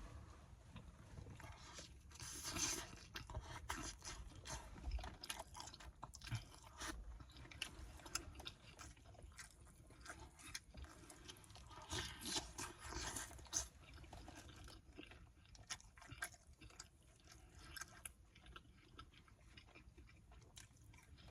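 Close-miked chewing of a mouthful of garlic naan and rice dipped in spicy curry sauce: many small wet mouth clicks, with louder spells of chewing about two seconds in and again about twelve seconds in.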